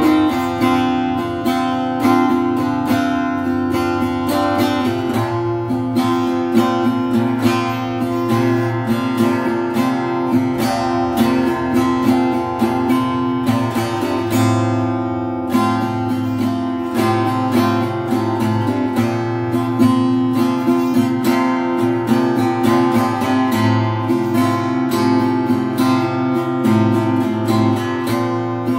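Donner steel-string cutaway acoustic guitar, all stock, strummed steadily through a song: quick, even strokes over ringing chords.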